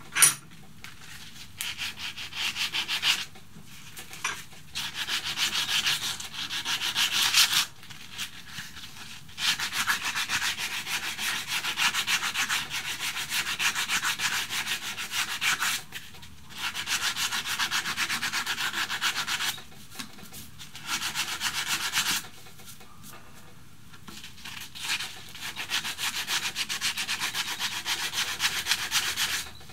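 Sandpaper rubbed by hand back and forth over a carved wooden walking stick, in several spells of fast, even scratchy strokes with short pauses between them. A single sharp click comes at the very start.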